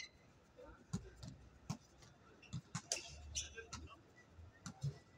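Basketball bouncing on a hard court in play: irregular thuds, some in quick pairs, mixed with faint calls from the players.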